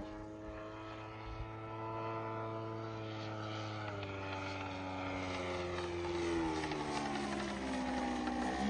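Propeller-driven 3W-157 petrol engine of a large RC model plane running. Its pitch holds steady for about four seconds, then falls away and climbs sharply again near the end as the sound grows louder.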